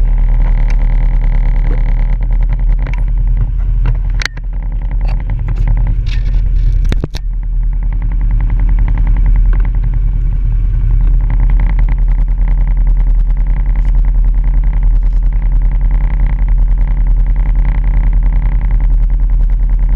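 ATV engine running while riding, with two sharp knocks about four and seven seconds in; from about halfway the engine runs steadier and a little louder.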